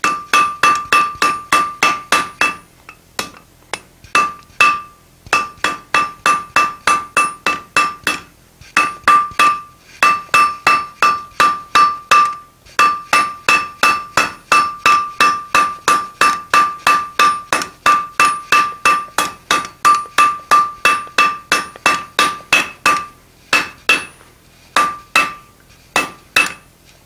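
Hand hammer striking a red-hot steel tong rein on an anvil, about three blows a second with a brief pause every few seconds. Each blow rings out with a clear tone. The smith is evening out lumps and bumps in the rein.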